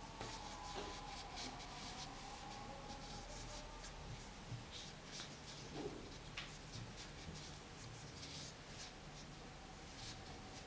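Faint, irregular rustling and rubbing of yarn and cotton cord under the fingers as green yarn is knotted onto a macrame-wrapped ring, over a faint steady background hum.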